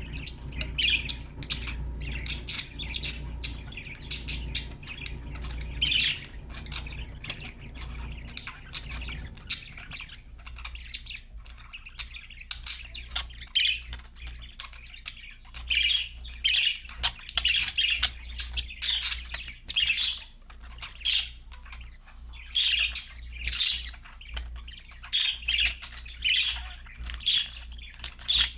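Budgerigars chirping and squawking in quick, scattered calls that grow busier in the second half, over a low steady hum.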